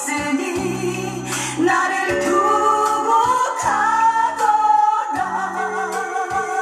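A recorded ballad from a cafe-style CD playing back: a woman singing over live-band accompaniment.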